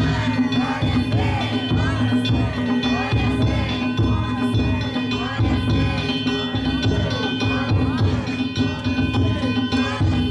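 Danjiri float's festival percussion (narimono): drums and hand-struck gongs played in a steady rhythm, with a crowd of voices over it.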